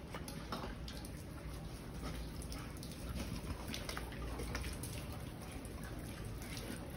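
Several pigs eating wet feed from a trough: many short wet smacks and chewing sounds in quick, irregular succession.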